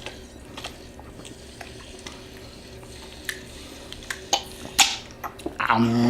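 Scattered small clicks and handling noises over a steady low hum, with a couple of sharper clicks past the middle and a brief voice near the end.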